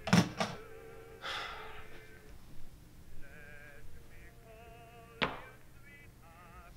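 Two heavy thuds in quick succession, then a short rush of noise, over quiet background music with a wavering, vibrato-like tone; a single sharp knock about five seconds in.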